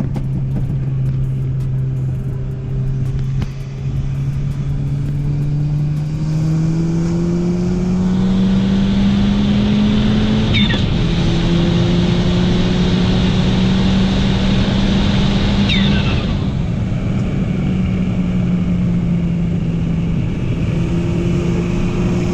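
Ford Fiesta ST's turbocharged 1.6-litre four-cylinder heard from inside the cabin under hard acceleration: the engine note climbs steadily for about ten seconds, drops at a shift about halfway, then holds and climbs again. An intake and turbo hiss rides on top under boost, with a quick falling whoosh twice as the throttle lifts.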